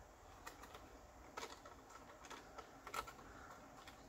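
Small metal craft trimmers snipping at thin chicken wire, giving a few faint sharp clicks, the loudest about three seconds in. The trimmers are struggling to cut through the wire.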